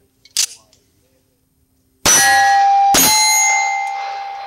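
Two 9mm pistol shots about a second apart from a Springfield Armory 1911, each followed by a steel target ringing, the ring fading over a second or two. A small click comes before the shots.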